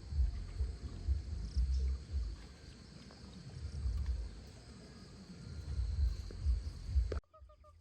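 Steady high insect drone over an uneven low rumble. It cuts off abruptly near the end, and a faint, rapidly repeating chirp follows.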